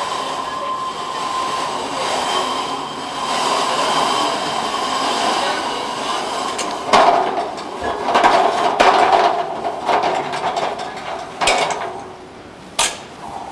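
Rescue stretcher sliding down the rails of an aluminium ladder: a steady scraping with a ringing note. From about halfway there is a run of clanks and knocks as it reaches the foot of the ladder, then a few single knocks.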